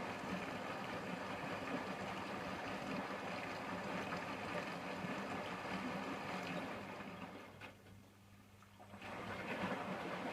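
Hotpoint washing machine running, with water swishing over a steady hum. It fades to quiet for about two seconds near the end, then starts again.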